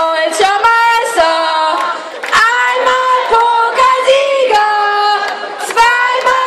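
Women's voices singing a song in held, stepping notes, with claps or beats about twice a second.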